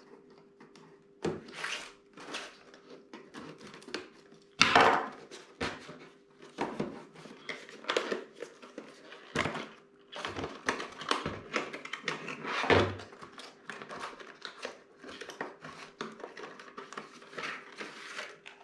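A small cardboard retail box with a plastic blister inside being cut open with a pocket knife and pulled apart by hand: irregular scraping, tearing and crinkling of card and plastic, with a sharper, louder stroke about five seconds in.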